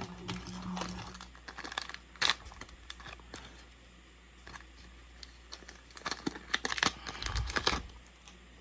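Trading-card booster pack being handled and opened: the foil wrapper crinkles and tears, and the cards click and slide against each other. Scattered sharp clicks and crinkles, busiest about two seconds in and again near the end.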